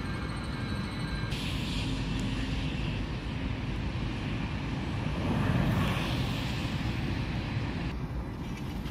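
Steady low vehicle rumble, growing louder for a moment about five and a half seconds in.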